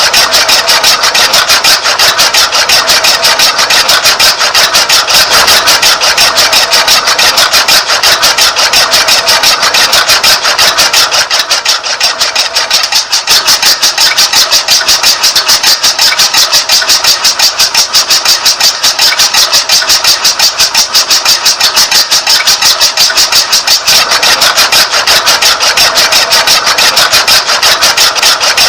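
Small electric motor of a homemade miniature tractor-and-chaff-cutter model, running steadily and loudly with a fast, even clatter and no deep engine rumble.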